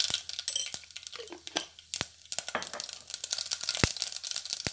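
Mustard seeds sizzling and crackling in hot coconut oil in a metal pan: a steady fizz with many quick sharp pops and clicks, a few louder ones about two seconds in and near the end.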